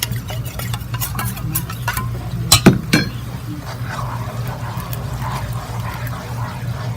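A utensil clinking against a dish while cornstarch and water are stirred into a slurry. There are sharp clinks over the first three seconds, the loudest about two and a half seconds in, with a steady low hum underneath.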